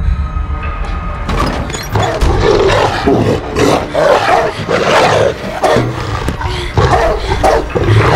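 A rottweiler snarling and barking in a rapid, continuous string of growls as it lunges at a car window, with a low rumble underneath.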